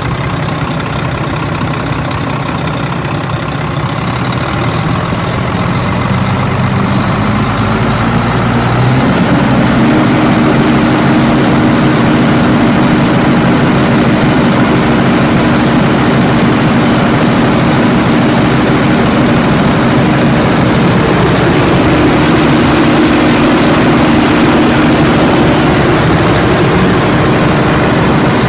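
Volvo VED12C 12-litre inline-six diesel engine (425 hp) running in the truck's engine bay. Its pitch climbs over the first several seconds, steps up about nine seconds in, and then holds steady at the higher engine speed.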